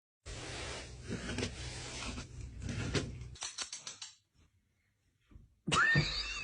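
Rustling and scattered light knocks and clatter, then a quick run of clicks about three and a half seconds in and a short gap of near silence. Near the end a louder new sound begins, with high gliding tones.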